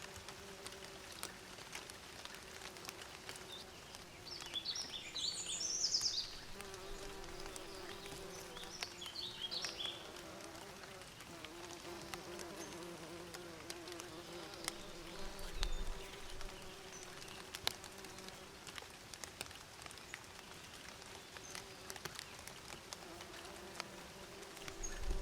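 Bees buzzing in a steady, wavering hum, with a bird giving short high chirps twice, about five and nine seconds in.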